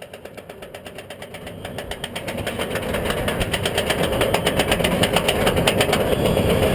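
Roller coaster train climbing the lift hill: a fast, even clacking from the chain lift and anti-rollback ratchet that grows steadily louder.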